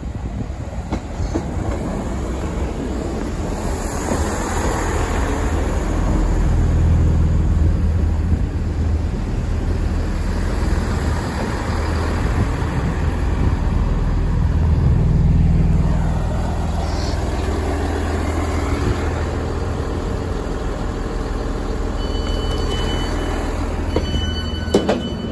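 Great Western Railway Turbo diesel multiple unit pulling into the platform, its underfloor diesel engines running with a steady low drone under wheel and rail noise. Near the end, a series of short high beeps as the doors open.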